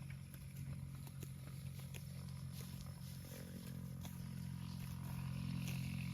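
A steady low hum like an idling engine, with scattered light clicks and knocks; it grows a little louder near the end.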